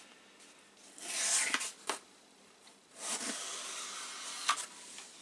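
A packing box being opened by hand: rustling and scraping in two stretches, about a second in and again from about three seconds, with a few sharp clicks.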